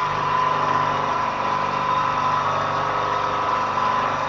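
Milling machine running with a two-flute end mill cutting the edge of a metal part, a steady whine with a lower hum joining in right at the start.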